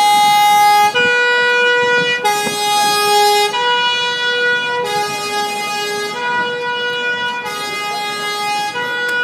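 Two-tone fire engine sirens, switching back and forth between a high and a low note about every second, with more than one siren sounding at once.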